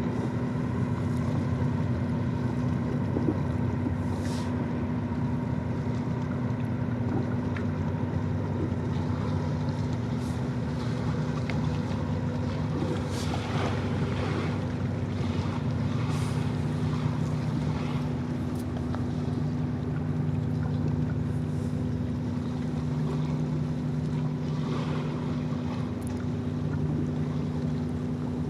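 Tugboat's diesel engines running steadily while pushing loaded barges: a constant low drone with a steady hum.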